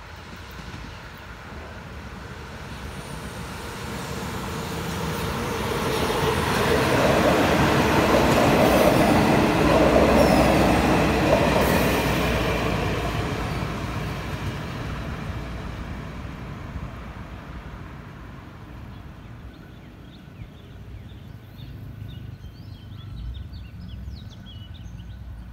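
Thai special express diesel railcar train passing at speed. Its rumble builds to a peak about ten seconds in and then fades as it moves away.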